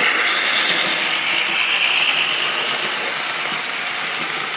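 Model trains running on a layout: a steady whir of the motors and wheels rolling on the rails, easing slightly toward the end.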